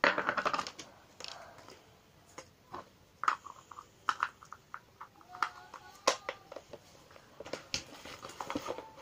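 Hands handling and opening a small plastic surprise ball: a short burst of rustling at the start, then scattered clicks and crinkles.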